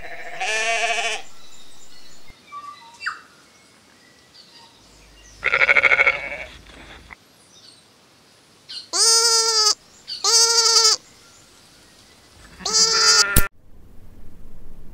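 Sheep bleating five times, each a wavering baa of about a second, the third and fourth close together. A short sharp click follows just after the last bleat.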